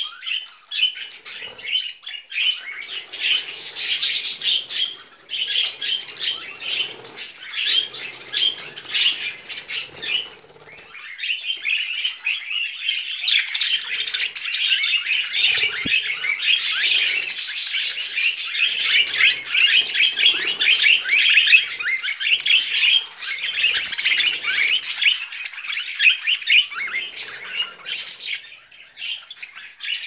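A flock of budgerigars chattering nonstop in quick high chirps, thinning briefly about eleven seconds in and then growing denser and busier.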